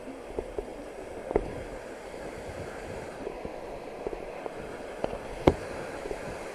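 Steady rush of a nearby waterfall, with scattered sharp knocks and clicks from an abseiler's boots and gear against rock; the sharpest knock comes about five and a half seconds in.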